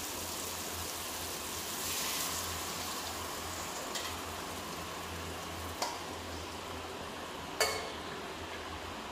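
Beef and korma paste sizzling in a pot on the stove as stock is ladled in, a steady hiss that swells briefly about two seconds in. A metal ladle clinks against a steel pot three times in the second half, over a faint low hum.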